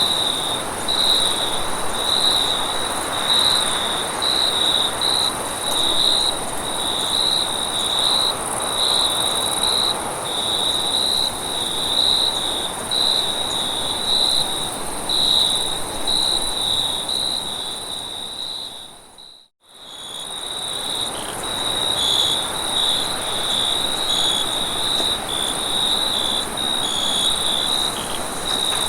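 Night-time forest ambience of crickets chirping, a steady pulsing trill on one pitch over a higher continuous insect drone and a soft background hiss. About two-thirds of the way through, everything fades out to near silence for a moment and then comes back.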